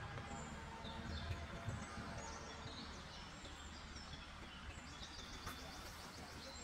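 Several songbirds chirping and calling, with a fast, evenly repeated trill about five seconds in, over a steady low rumble.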